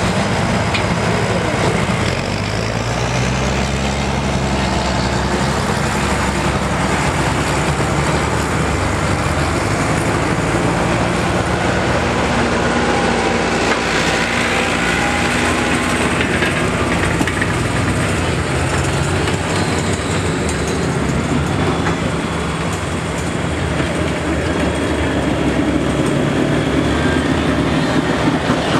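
John Deere farm tractor engine working hard under load as it drags a weight-transfer pulling sled. The pitch climbs and wavers in the first few seconds as it takes up the load, then it runs steadily and loudly.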